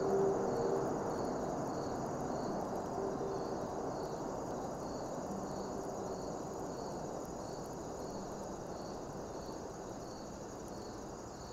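Summer-evening riverside ambience: a steady wash of distant city noise fading slowly, with insects chirping in a regular pulse about twice a second.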